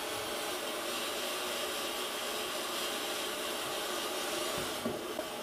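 Steady hiss of static, a little brighter from about a second in until near the end, with a faint knock near the end.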